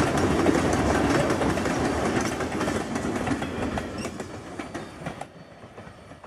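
Freight train of tank cars rolling past close by, steel wheels clicking over the rail joints with a steady rumble. The sound fades out about five seconds in.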